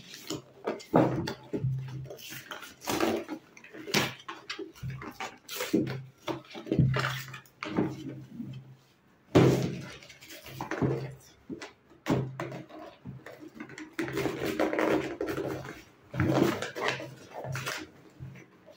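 Cardboard and plastic packaging of a boxed doll being pulled and torn open by hand: irregular rustling, crinkling and tearing.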